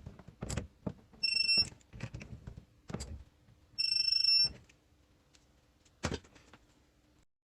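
Two electronic beeps, a short one and a longer one about two and a half seconds later, among scattered clicks and knocks, over a faint steady hum.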